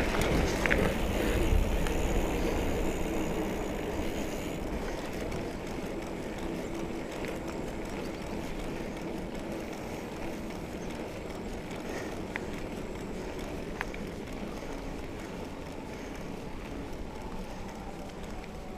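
2017 Trek Remedy 7 mountain bike riding along a dirt trail: steady tyre and trail noise, louder for the first few seconds, with a few sharp clicks.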